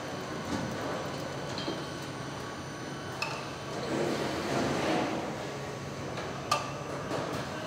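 Car factory assembly-line noise: a steady hum of machinery with occasional metallic clicks and knocks, the sharpest about six and a half seconds in.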